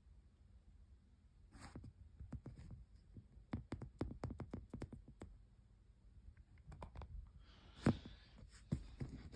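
Handling noise from hands on a stuffed Billy Bass fish toy: irregular light clicks and taps starting about a second and a half in, with a short rustle near the end.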